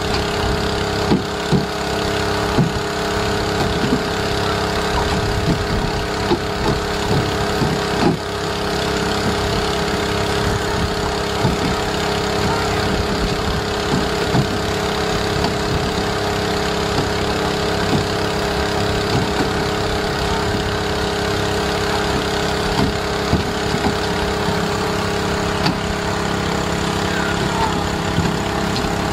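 A fishing boat's engine running steadily, with irregular knocks and thuds on top, most of them in the first several seconds.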